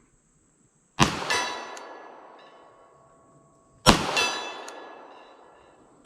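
Two 9mm shots from a Canik TP9 SFX pistol about three seconds apart, each followed a moment later by the ringing clang of a steel silhouette target being hit, which rings on for a couple of seconds. A third shot comes right at the end.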